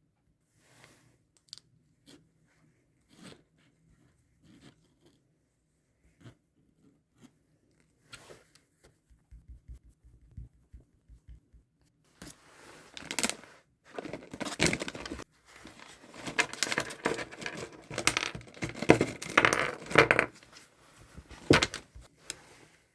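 Scattered small taps and clicks of things being handled. About twelve seconds in come some ten seconds of loud rustling and tearing of wrapping.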